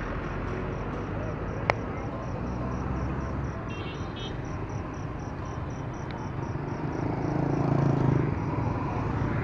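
Motorbike traffic driving past on a street, with steady engine and tyre noise. The engines grow louder as motorbikes pass close about seven to eight seconds in. One sharp crack sounds about two seconds in.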